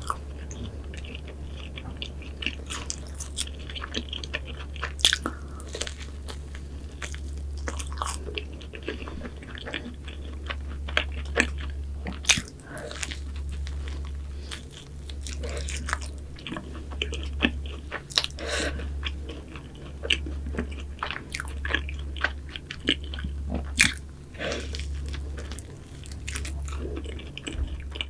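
Close-miked chewing and biting of pastries, with many sharp crisp crackles. From about halfway through, a low throb pulses roughly once a second in time with the chewing.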